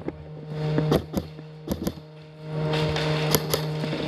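Scattered sharp cracks of airsoft fire, several in quick pairs, over a steady low hum that drops out for about a second midway.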